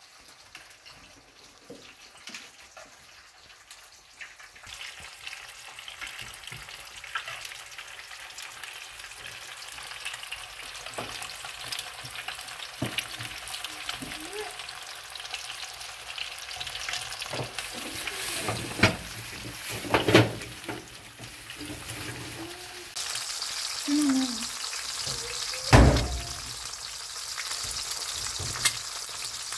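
Eggs frying in hot oil in a pan, a steady sizzle that starts a few seconds in and gets louder late on, while a metal spoon bastes them and knocks against the pan several times, once loudly near the end.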